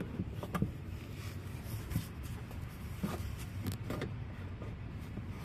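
Small wrench and screwdriver turning a mud-flap screw into a car's plastic wheel-well liner: a few scattered scrapes and clicks over a steady low rumble.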